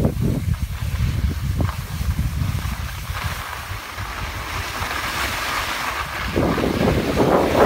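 Wind rumbling over the microphone of a moving skier, with a hiss of skis sliding on packed snow that grows louder about three seconds in.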